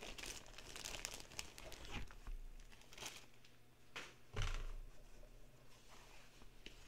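Clear plastic zip-top bag crinkling and rustling as it is opened and a folded canvas bag is pulled out, then the cloth rustling as it is handled and unfolded, with a soft thump about four and a half seconds in.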